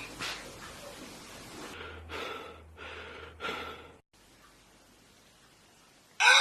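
A cat sneezing three times in quick succession, each a short breathy burst. A sudden loud cry starts right at the end.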